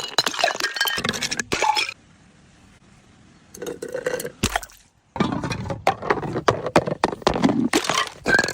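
Glass clinking and crunching in dense runs of sharp clicks, the sound of bottles and broken glass being knocked together and crushed. It pauses briefly partway, with a single dull thump about four and a half seconds in.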